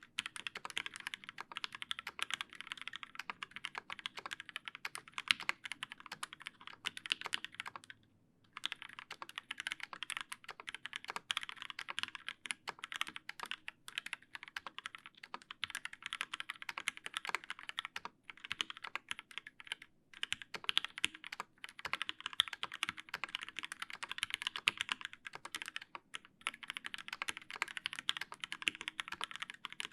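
Steady fast typing on a TGR Alice mechanical keyboard with a brass plate, lubed Linjar linear switches and GMK keycaps, giving a continuous patter of key strokes. The typing stops for about half a second around eight seconds in, with a few shorter lulls later.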